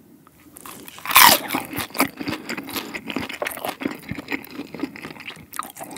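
A close-up bite into a crisped chicken-skin dumpling about a second in, the loudest moment, followed by steady chewing with many small crunches and clicks.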